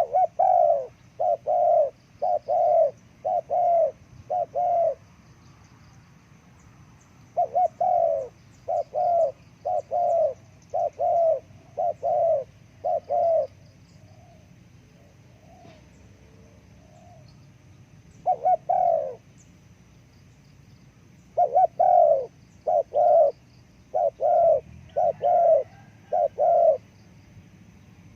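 Spotted dove (terkukur) cooing: phrases of short, evenly spaced low coos, roughly two notes a second, broken by pauses of a few seconds.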